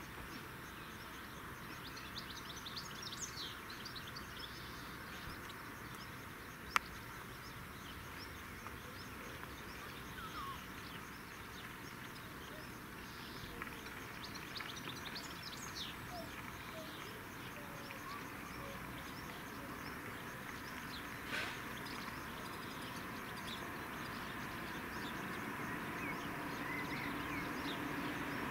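Birds chirping over steady outdoor background noise, with a single sharp click about seven seconds in. The background grows gradually louder near the end.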